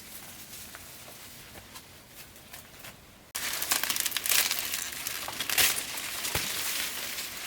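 Crinkling, crackling rustle of something dry being handled, starting suddenly about three seconds in after a few faint ticks.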